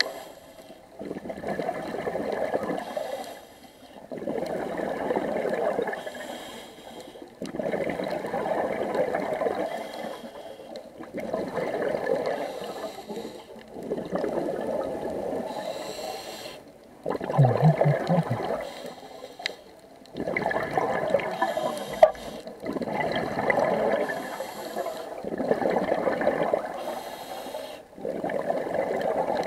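Scuba diver breathing through a regulator underwater: a bubbling exhalation every three seconds or so, with quieter gaps for each inhale.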